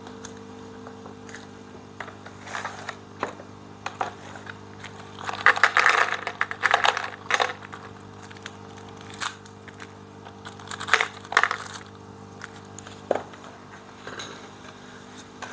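Hands rummaging through a plastic toolbox, tools and small metal parts clinking and rattling in irregular bursts, busiest around the middle. A steady low hum runs underneath.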